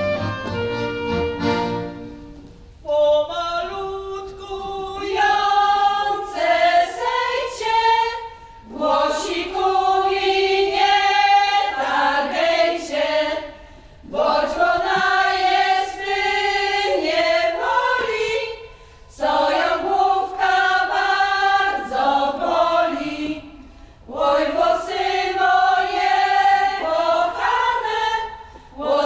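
A group of voices singing a Polish folk wedding song for the bride's capping (oczepiny), in about five long phrases with short breaks between them. It follows the tail of an instrumental passage that fades out in the first couple of seconds.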